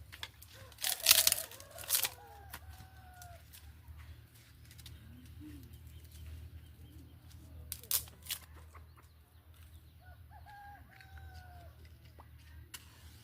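A rooster crowing twice, once about a second in and again about ten seconds in, with a few sharp knocks, the loudest around the first crow, and a steady low hum underneath.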